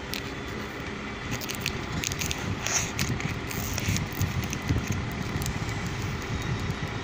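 Light clicks and crackles from handling a wristwatch and its packaging, with a brief rustle about three seconds in, over steady background noise.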